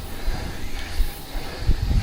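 Irregular low rumble and thumps over a faint hiss: wind and riding noise on an action camera's microphone during a road-bike climb.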